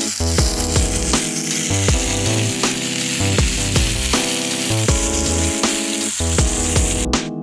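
Beef steaks sizzling steadily in a hot pan, the frying cutting off suddenly about seven seconds in. Electronic background music with a steady beat plays over it.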